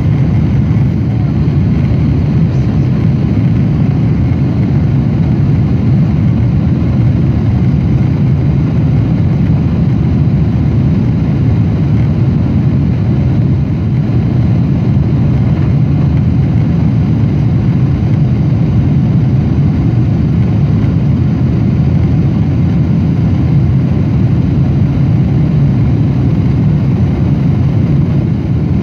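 Steady cabin noise of a Boeing 777-200 in flight: a deep, even rumble of engines and rushing air that does not change.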